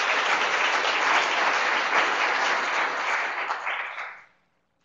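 Audience applauding, fading out about four seconds in.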